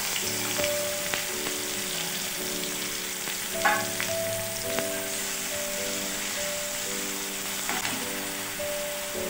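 Chopped onion sizzling as it fries in hot oil in a metal kadhai, with a single knock a few seconds in. Soft background music with held notes plays throughout.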